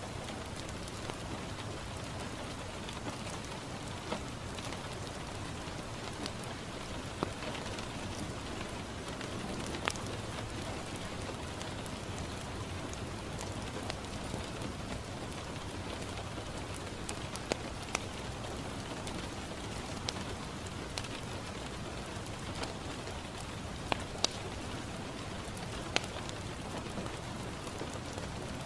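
Steady rain falling on a window, with a handful of sharp pops from a crackling wood fire at irregular moments.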